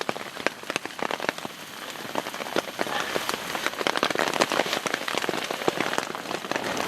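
Rain pattering on a tarp overhead: a dense, irregular run of drop ticks over a steady hiss, a little louder in the second half.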